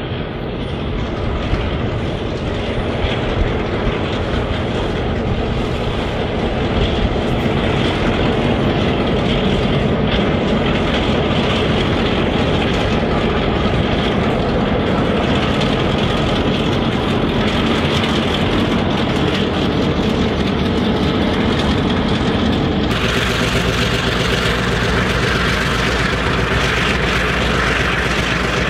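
A narrow-gauge iron ore train passing close by: its diesel-electric locomotives are running under load and the hopper wagons clatter over the rail joints. About 23 s in the sound changes to a steadier engine drone with more hiss.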